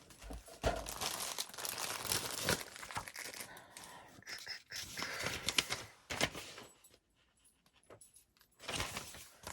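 Soft eco-friendly packaging bag around a spiral planner crinkling and rustling as it is handled. It goes in uneven bursts for about six seconds, pauses almost silent, then rustles briefly again near the end.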